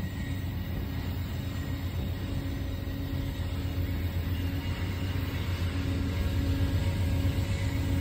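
Low rumble of an approaching Amtrak passenger train, growing slowly louder.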